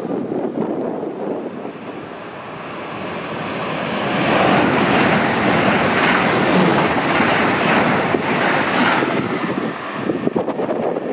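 ICE high-speed train passing through the station at speed without stopping: a rushing of wheels and air that swells over the first few seconds, stays loud through the middle and falls away near the end. Wind buffets the microphone at the start and end.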